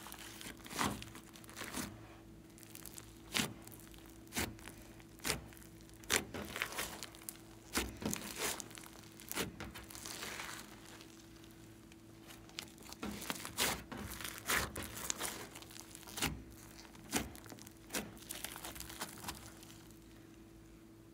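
Purple foam-bead slime being squeezed and stretched by hand: crackling and crinkling with irregular sharp pops as the slime and its air pockets are pulled apart. A faint steady hum sits underneath.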